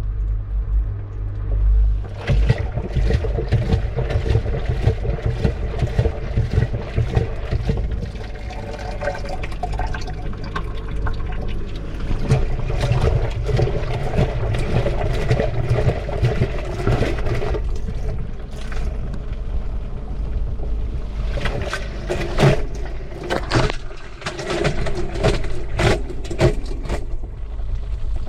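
Washing machine drum turning with water sloshing and splashing inside it, heard from within the drum, with many sharp knocks. The first two seconds hold only a low rumble before the splashing starts.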